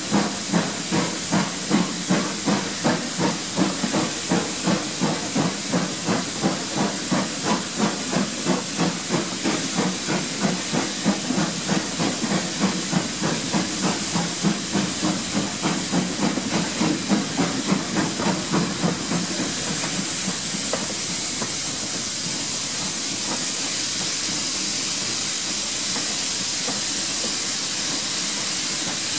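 GWR Hall-class 4-6-0 steam locomotive working along the line, its two-cylinder exhaust beating about two to three times a second over a steady hiss of steam. About two-thirds of the way through the beats stop, leaving only the steady steam hiss.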